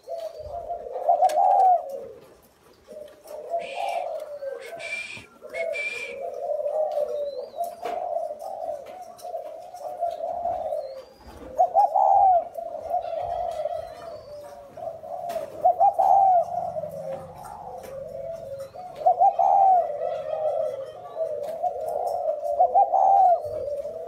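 Two caged spotted doves cooing almost without pause, their calls overlapping; one coos in the 'thổ' style, the other in the 'còi' style. Three short high-pitched sounds cut in about four to six seconds in.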